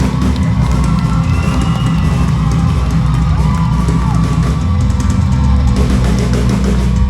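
Live rock band playing at full volume: drum kit and electric guitar over a heavy bass.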